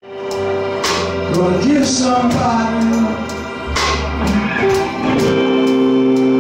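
Live band music: sustained keyboard chords over bass, with guitar and regular percussion strokes.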